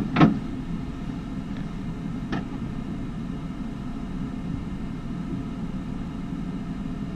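Steady low hum of a visual field perimeter running during a glaucoma field test, with a sharp click about a quarter second in and a fainter click about two and a half seconds in.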